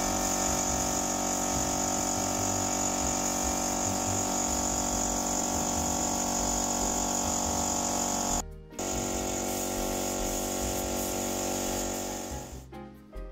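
Paint spray gun running while spraying primer: a steady motor hum with a high hiss. It cuts out briefly about eight and a half seconds in, starts again, and fades near the end.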